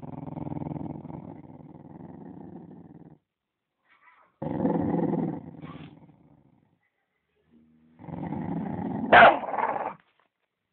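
A dog growling in three long, low rumbling spells, the warning growl of a dog guarding its bone. The last spell peaks in a short, sharp, louder outburst.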